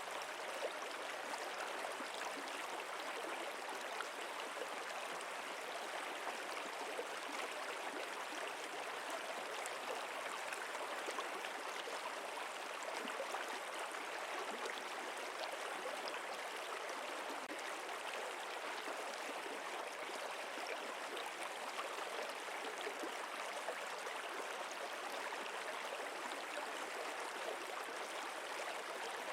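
Running water of a stream flowing steadily, an even rushing without breaks or changes.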